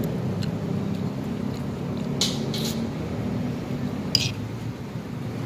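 Spoon and fork scraping through a lettuce salad on a plastic plate. There are two short scrapes close together about two seconds in and a sharper one about four seconds in, over a steady low hum.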